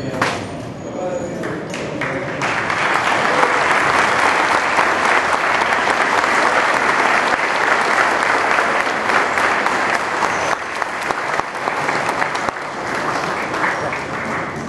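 Audience clapping in applause, building up about two seconds in, holding steady, then thinning out near the end.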